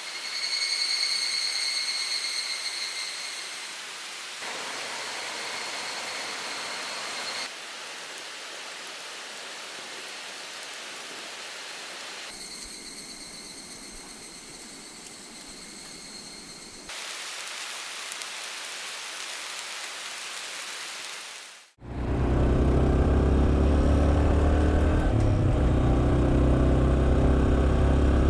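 Higurashi cicadas (evening cicadas) calling with a high ringing tone over a rushing mountain stream, in several short clips that change at hard cuts. About 22 seconds in, the sound cuts to a louder, low, steady sound with several held pitches.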